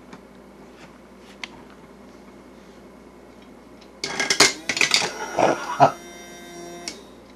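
A few faint clicks, then about four seconds in a sudden loud clattering burst with several steady high tones under it, lasting about three seconds and cutting off.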